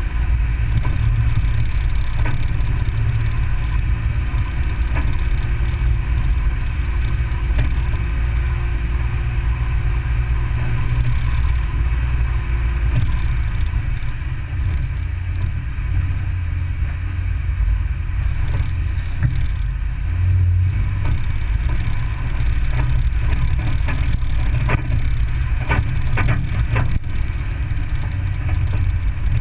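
A vehicle driving along a gravel road, heard from inside the cab: a steady low engine and road rumble, with a few sharp rattles or knocks near the end.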